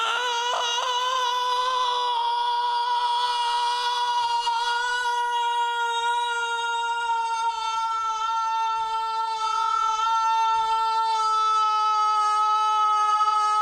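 A single long sung note held at one steady pitch, with a slight waver at the start and no break.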